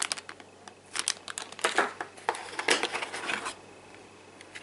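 Clear plastic packaging bag crinkling and rustling as it is handled, in irregular bursts that die down after about three and a half seconds.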